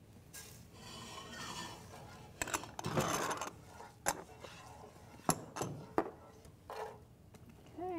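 Wooden spoon stirring and scraping curry leaves and cumin seeds around the bottom of a saucepan of oil, with a few sharp knocks of the spoon against the pan.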